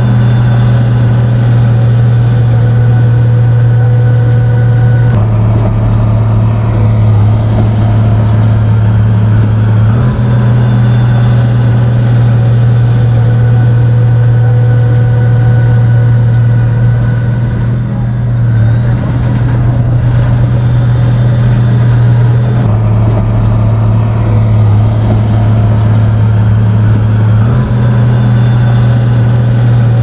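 Komatsu bulldozer's diesel engine running loud and steady as it works. Its low drone shifts abruptly about four times.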